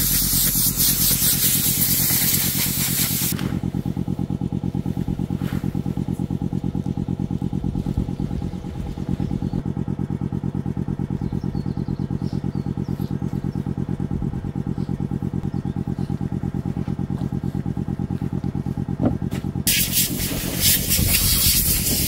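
Air compressor motor running with a steady rapid chugging pulse. An air blow gun on its hose hisses loudly over it for the first few seconds and again near the end, blowing dust off a tent.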